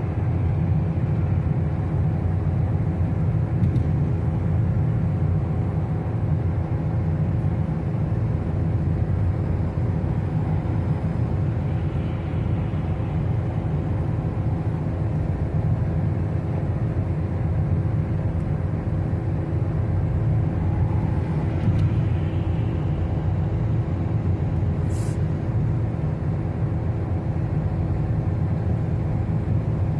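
Car driving on a highway: a steady low rumble of tyres and engine, with a faint even hum over it.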